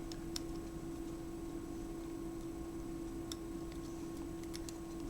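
A few faint, scattered small clicks of small plastic camera parts being handled and fitted, over a steady hum.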